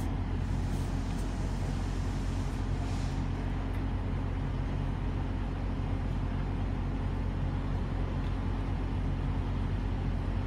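A steady low mechanical hum at a constant pitch, unchanging throughout.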